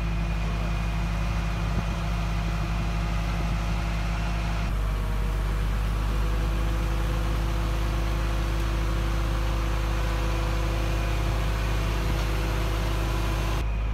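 A motor vehicle's engine idling: a steady low hum with a constant pitch under a wash of hiss. The hum's tone changes abruptly about five seconds in and again near the end.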